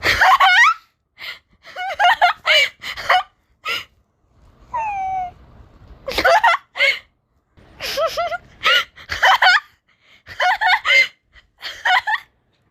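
A person laughing hard in repeated short, high-pitched bursts, with gasping breaths between them.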